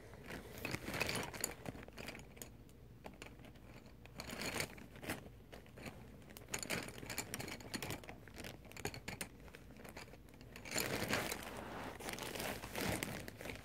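Paper rustling and crinkling in irregular bursts as a coloring-book page is handled, loudest about a second in and again near the end.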